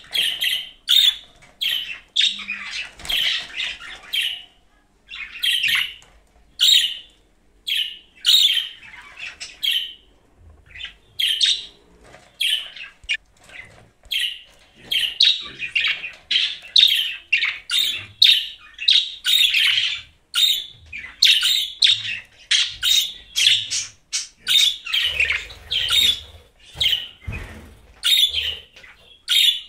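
A budgerigar chattering and warbling: a fast, busy run of short chirps and squawky notes with a few brief pauses.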